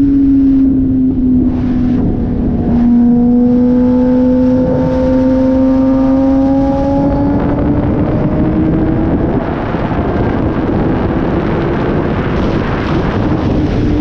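Kawasaki ZX-10R inline-four sportbike engine running at highway speed, with wind rushing over the microphone. The engine note dips slightly, then climbs steadily for several seconds as the bike accelerates, and the wind noise grows louder near the end.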